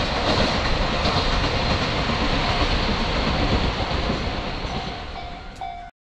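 Train running on the rails with a steady rumble. It fades over the last couple of seconds, then cuts off abruptly to silence shortly before the end.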